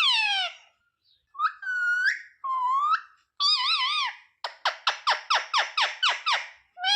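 Indian ringneck parrot calling: a falling whistled call, then several rising and wavering whistled calls, then a quick run of short chirps, about six a second, in the second half.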